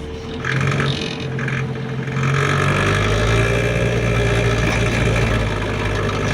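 City bus engine heard from inside the passenger cabin, with two short noises near the start. About two seconds in, the engine's low rumble grows louder and holds steady as the bus pulls away.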